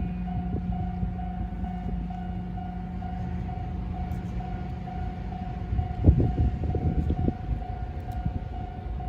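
Railway level-crossing warning signal sounding steadily at about two strokes a second, over a low hum that stops about halfway through. A cluster of low thumps comes about six to seven seconds in.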